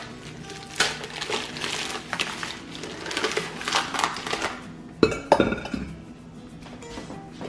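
Plastic bag crinkling and rustling as a frozen whole chicken is worked out of it, then two heavy knocks about five seconds in as the bird is set down into a ceramic slow-cooker crock. Faint background music underneath.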